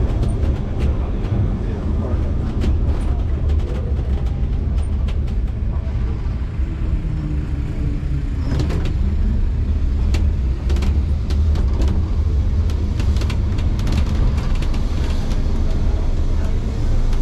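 Vintage wooden-bodied electric tram running along street rails, heard from inside the car: a steady low rumble from motor and wheels with frequent short clicks and rattles.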